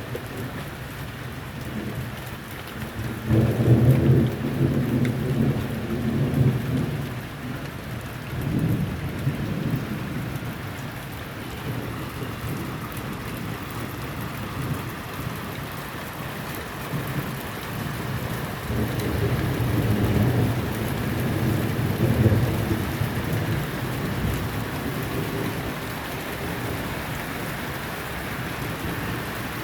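Thunderstorm: steady rain falling, with thunder rumbling twice, a long roll a few seconds in and another past the middle, plus a shorter rumble in between.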